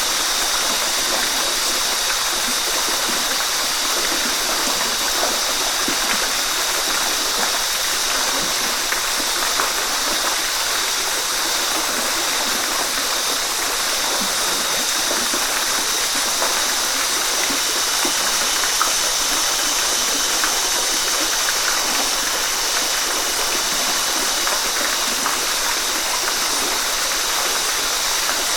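Steady rain falling on forest foliage, an even hiss with small scattered drop sounds and a faint steady high-pitched tone underneath.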